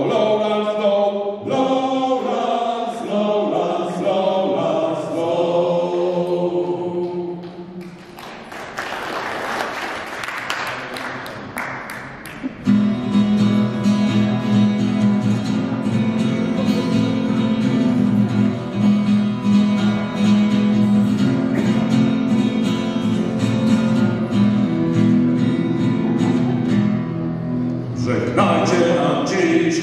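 Male voices singing a sea shanty together, ending about 8 seconds in, followed by a few seconds of audience applause. About 13 seconds in, acoustic guitars strike up a strummed intro to the next song, and the singing voices come in near the end.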